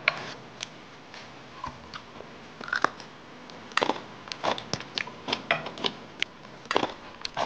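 Crisp crunching and chewing of a green chili pepper pickled in doenjang, heard as irregular sharp crunches that come thicker in the second half.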